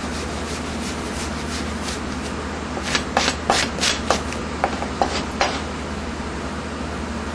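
Kitchen knife scraping the spines off pufferfish (fugu) skin in a run of short strokes, faint at first, then louder for a couple of seconds starting about three seconds in, over a steady low hum.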